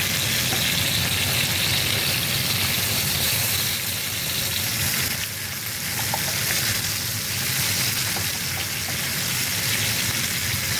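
Thin-cut pork chops searing in hot canola oil in a skillet, a steady sizzle that dips briefly about halfway through.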